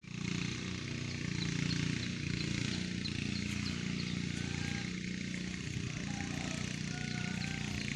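A small engine running steadily at a fairly even speed.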